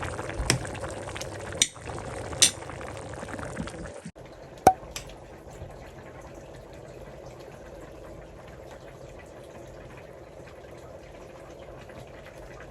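A pot of sinigang broth boiling with a steady bubbling, and a few sharp clinks in the first few seconds. The sound drops suddenly to a quieter, steady bubbling about four seconds in.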